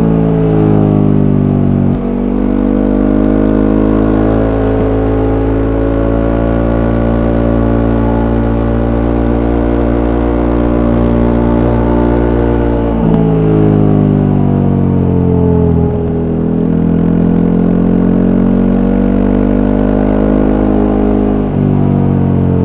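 Voge 300 Rally's single-cylinder engine through its stock exhaust, heard on board while riding. The engine note holds steady for long stretches, then changes pitch suddenly about two seconds in, around halfway and near the end, dipping and climbing again as the throttle is worked.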